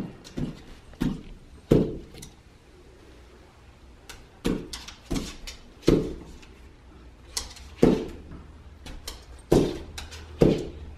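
Small dog jumping again and again at a half wall on its hind legs, its paws thumping against the wall and landing on a hardwood floor: about ten irregular thumps.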